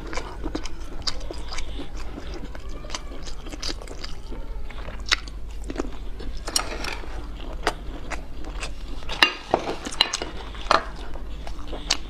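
A person biting and chewing food close to the microphone, with many short wet mouth clicks and smacks; a few louder bites come about nine to eleven seconds in.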